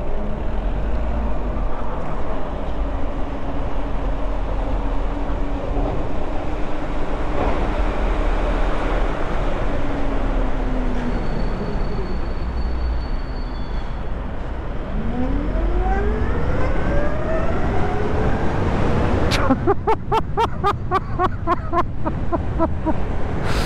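Zero FX electric motorcycle on the move over a wet road: wind rumble on the microphone and tyre hiss, with the electric motor's whine held steady at first, then rising in pitch as the bike accelerates in the second half. A quick run of sharp ticks comes near the end.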